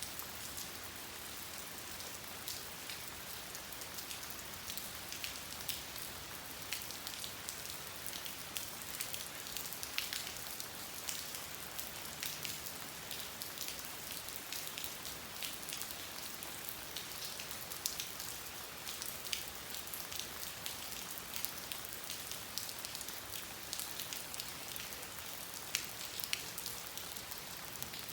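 Steady rain falling, an even hiss dotted with many sharp individual drop impacts.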